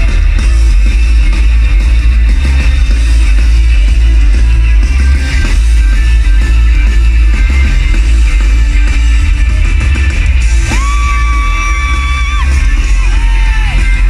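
Loud live rock music: a band playing with heavy bass and drums, a voice singing, and a long held high note about three-quarters of the way through.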